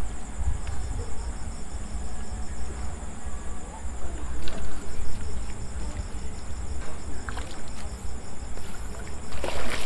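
Night insects, crickets among them, chirping steadily in a high, fast pulsing chorus over a low rumble, with a short rush of noise near the end.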